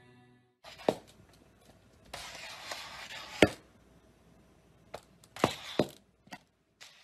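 A handful of sharp knocks and taps on a hard surface, irregularly spaced, the loudest about a second in and halfway through, with a short stretch of hiss about two seconds in.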